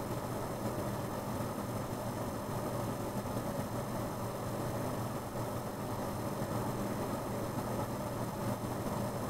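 Steady low machine hum with no distinct events.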